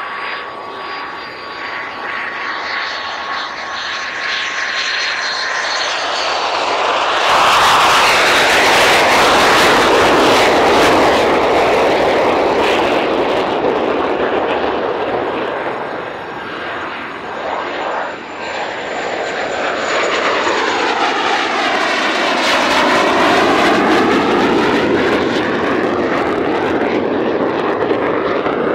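Hawker Hunter's Rolls-Royce Avon turbojet during a low pass. A thin whine at first, then from about seven seconds in loud jet noise; in the last third it takes on a sweeping, phasing swoosh as the jet passes close by.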